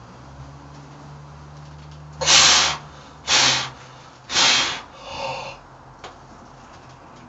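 A lifter's sharp, forceful breaths between reps of a heavy bench press: three hard blasts of air about a second apart, then a weaker, partly voiced fourth. A small click follows about six seconds in.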